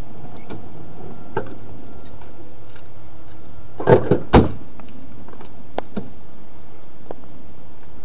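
A sedan's rear door being opened, about four seconds in: a quick rattle of the handle and latch, then a solid clunk. A few light knocks and clicks come before and after.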